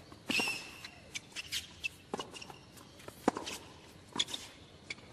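Tennis rally on a hard court: sharp pops of racket strings hitting the ball and the ball bouncing, with short high sneaker squeaks on the court surface. The loudest hit comes a little past three seconds in.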